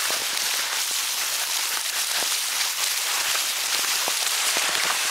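Komase chum of krill and bread-crumb groundbait being stirred and scraped with a scoop in a bait tray, sped up five times so that it becomes a dense crackling hiss like rain.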